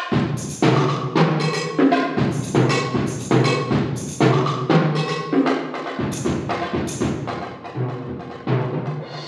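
Solo multi-percussion playing on tom-toms and a concert bass drum: a fast, driving run of drum strokes with accented hits, some carrying a bright metallic ring above the drums.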